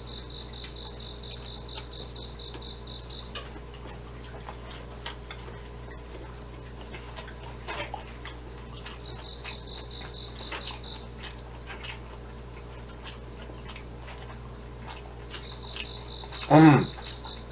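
A cricket chirps in high, rapid pulses in three runs of a few seconds each, over soft chewing with faint mouth clicks. Near the end a short, loud hum of voice stands out.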